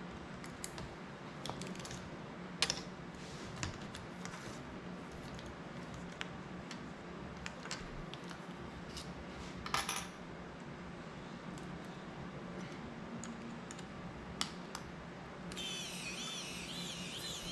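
Scattered small clicks and taps of a screwdriver and tiny screws and parts against a CineLog 35 FPV drone's plastic frame and prop guards, handled on a tabletop. There is one sharper click about two and a half seconds in and a brief rattle about ten seconds in. Music comes in near the end.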